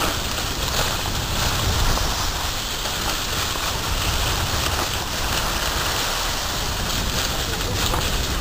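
Steady rush of wind buffeting the microphone while skiing downhill, with the hiss of skis scraping over firm, packed snow.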